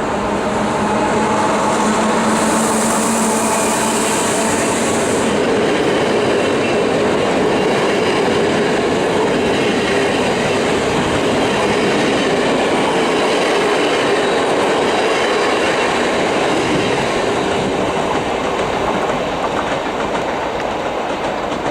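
A train passing at close range, its wheels clattering over the rail joints in a loud, steady rumble, with a high hiss for about three seconds near the start.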